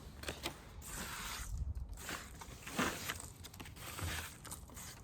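Irregular rustling and scraping with a few light knocks, made as beehive frames are handled during an inspection.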